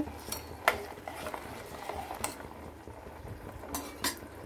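Jaggery syrup simmering in a steel pot while the melting lumps are stirred, with a few sharp clicks of the metal ladle against the pot.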